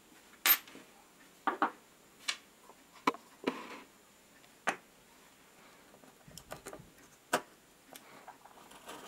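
Small steel parts of a Makita TD021D hex driver's head (spring, washers, hammer) clicking and clinking as they are handled and set down on a wooden workbench: about a dozen separate sharp taps at uneven intervals.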